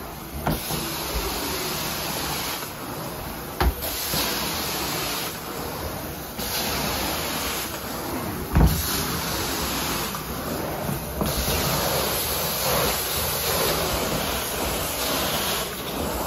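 Carpet-cleaning extraction wand working wet carpet: a steady rushing hiss of suction and spray that turns brighter and duller by turns every few seconds as the wand strokes back and forth. Two sharp knocks, the louder one a little past halfway.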